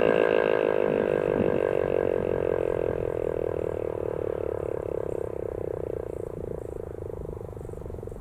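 American Signal Tempest T-121 rotating storm siren winding down at the end of its three-minute alert cycle. Its pulsing tone slides slowly lower and fades.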